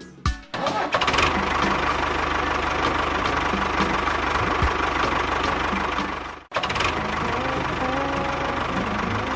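Steady engine-like running of a DIY mini tractor or mini bulldozer, a continuous drone with a fast even pulse. It cuts out abruptly after about six seconds and picks straight up again.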